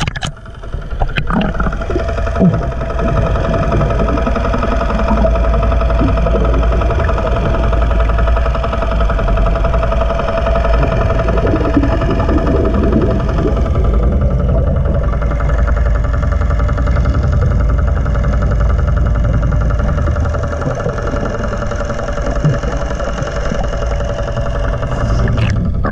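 An engine on the outrigger boat running steadily, heard underwater as a steady hum with heavy low rumble, mixed with the bubbling of a hookah diver's exhaled breath.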